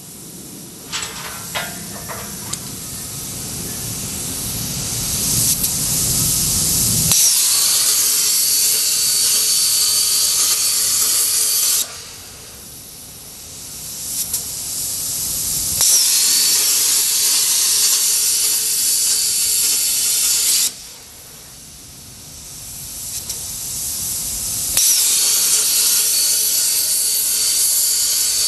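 Plasma cutter arc hissing loudly in repeated passes: each pass swells over a few seconds, holds a steady high hiss for about five seconds, then cuts off sharply, twice within the stretch.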